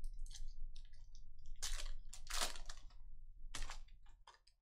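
Foil wrapper of a Panini Donruss Elite basketball card pack crinkling and tearing as it is ripped open by hand and the cards are pulled out. It comes as several crackly rustles, the longest in the middle and a short sharp one near the end.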